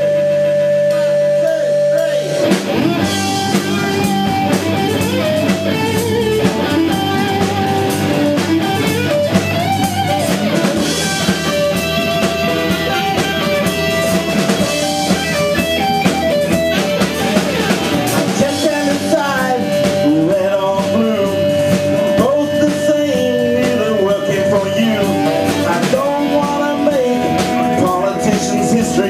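Live punk-pop band playing: a held note, then about two and a half seconds in the full band comes in with electric guitars and drum kit.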